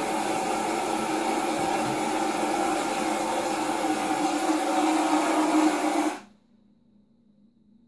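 Promixx electric mixer bottle's motor running steadily, whisking a protein shake, then switched off suddenly about six seconds in.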